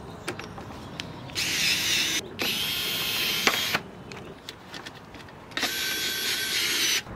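Power drill running in three short bursts, each about a second long, with scattered clicks between them.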